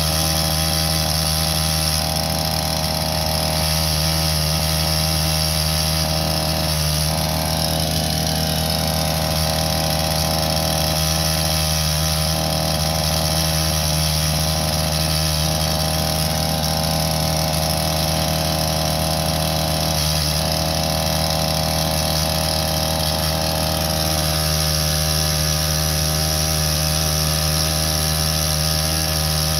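Diesel utility tractor engine running steadily at a constant speed, close by.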